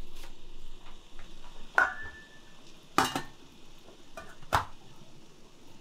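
Stainless steel couscoussière clanking as its steamer basket and lid are set in place: several sharp metal knocks, one followed by a short ring.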